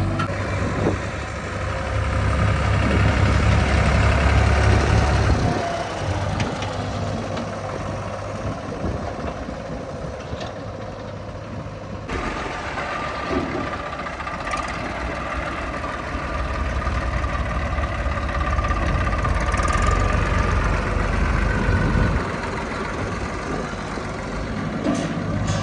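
Heavy diesel engine running under varying load, swelling louder twice and easing off between, with an abrupt change in the sound about halfway through.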